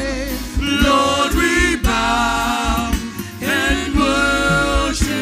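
Live gospel worship music: a singer's drawn-out, wavering melodic lines over band accompaniment with sustained low bass notes.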